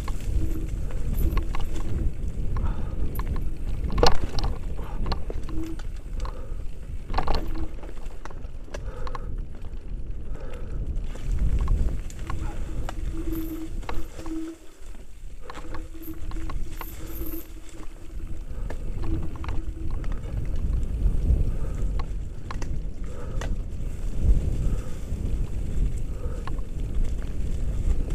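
Mountain bike descending a rough dirt trail covered in dry leaves: a constant rumble of tyres and frame over the ground, with rattles and knocks from the bike as it hits rocks and roots, the loudest about four seconds in and another around seven seconds.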